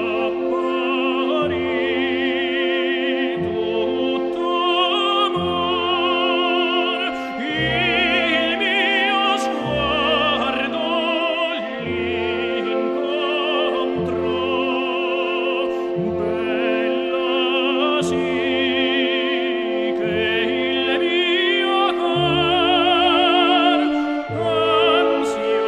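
Background music: an operatic voice singing with heavy vibrato over orchestral accompaniment, the bass notes changing every couple of seconds.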